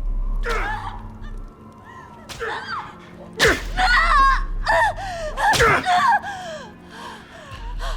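A person gasping and crying out in pain, with two sharp strikes about three and a half and five and a half seconds in, over low background music.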